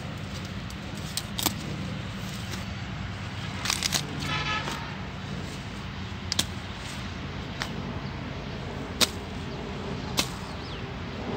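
A machete chopping through cauliflower stalks and leaves, a handful of sharp, scattered chops, over a steady low hum. A brief high tooting tone sounds about four seconds in.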